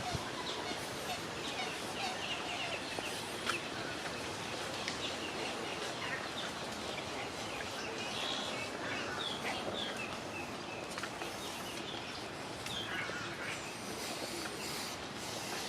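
Outdoor ambience of many birds calling: short, scattered chirps and calls over a steady background hiss.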